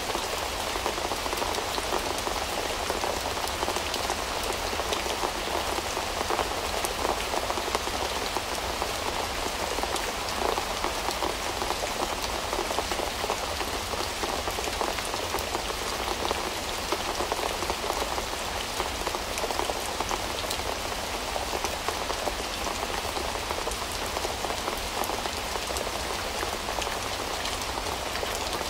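Steady rain falling, an even wash of noise dotted with many small drop ticks that never lets up.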